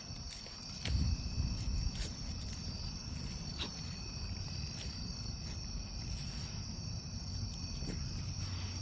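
Crickets chirping steadily, a continuous high trill, with a low rumble underneath.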